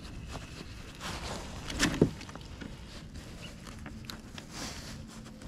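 Hands handling fishing tackle in a kayak: soft clicks and rustles, with one louder knock about two seconds in.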